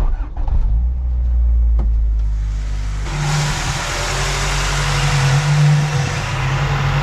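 Honda/Acura Integra being driven and picking up speed, engine and drivetrain running with road noise building about three seconds in. The transmission makes a growling sound, which the owner takes for a main bearing going out.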